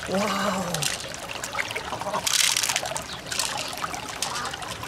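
Water trickling and splashing as hands rummage in a wet open mussel shell, with small clicks of beads against the shell and a brief louder splash about halfway through.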